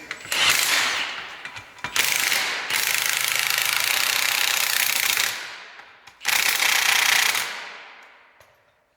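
Air-powered shop tool run in three bursts, the longest about three seconds, each fading away at the end rather than cutting off.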